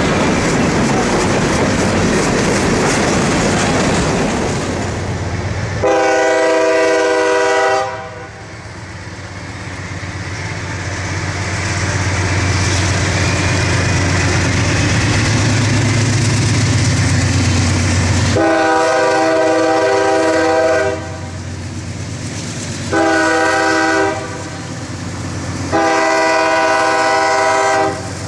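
Hopper cars of a freight train rolling past with steady wheel clatter. Then a CSX diesel locomotive approaching a grade crossing blows its air horn, a chord of several notes: one long blast, then a growing engine rumble, then long, short, long, the grade-crossing signal.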